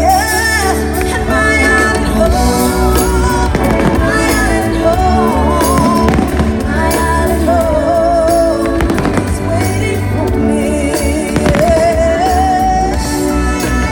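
A fireworks display's music soundtrack, with a sung melody over a steady bass. Several fireworks bursts cut sharply across it at intervals.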